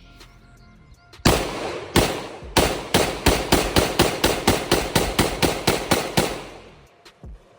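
AK-47 rifle firing: three single shots about two-thirds of a second apart, then a rapid string of about eighteen shots at roughly five a second, ending a little past six seconds in, with the echo fading out afterwards.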